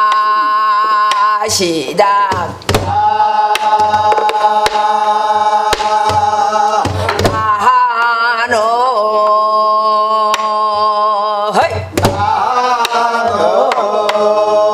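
Gueum, Korean wordless mouth-music sung by a woman on syllables such as 'na' and 'neo', in long held notes with sliding, wavering ornaments. Under it, strokes on a buk barrel drum keep a gutgeori rhythm. The voice breaks off briefly about two seconds in and again near twelve seconds.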